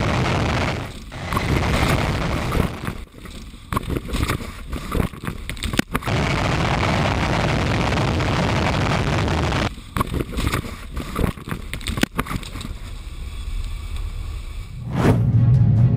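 Jet-engine exhaust blast roaring as it blows a car over and over across the grass, with heavy wind rush and rattling. The roar breaks off into quieter rattling several times, and there are a couple of sharp knocks around the middle and later on.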